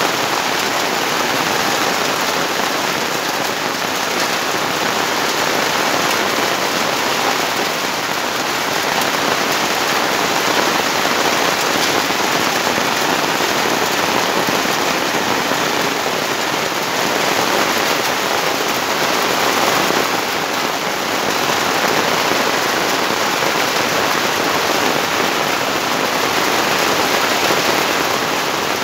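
Heavy rain falling steadily: a dense, even hiss of drops with fine crackle, loud and unbroken.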